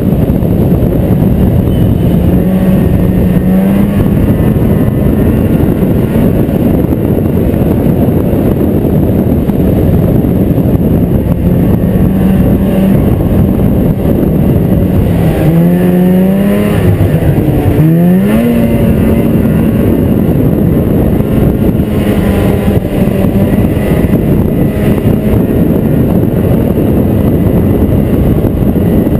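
Snowmobile engine running steadily under way, with the hiss of wind and track. About halfway through, the revs rise, dip and climb again.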